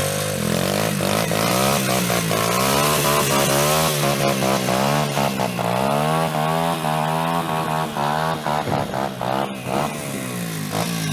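Small motorbike engine revving, its pitch rising and falling again and again.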